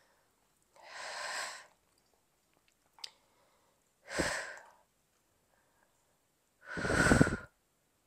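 A woman breathing audibly in time with Pilates glute-bridge reps: three breaths about three seconds apart, the last the loudest. A short click about three seconds in.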